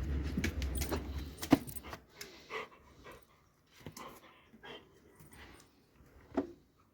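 A Doberman moving about, with scattered sharp clicks and jingles and a few short dog sounds. A low steady rumble fills the first two seconds, and a single sharp click about a second and a half in is the loudest sound.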